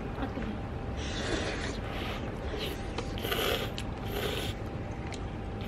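A person slurping army base stew ramyun noodles, in about four short noisy bursts.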